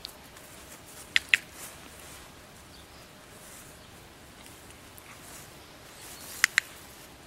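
Dog-training clicker clicked twice, about five seconds apart, each time a quick sharp double click as it is pressed and let go. The clicks mark the dog stepping toward the handler, giving into leash pressure.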